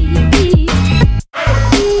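Background music with a steady drum beat and a held melody line; it cuts out abruptly for a moment a little past halfway, then comes back in.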